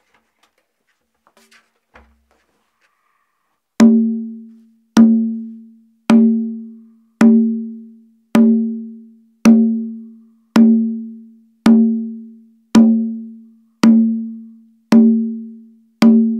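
Conga drum tipped on a hard rubber faux wood-slice mat, struck with the open hand: single open tones a little over a second apart, starting about four seconds in, each ringing with a clear pitch and fading before the next.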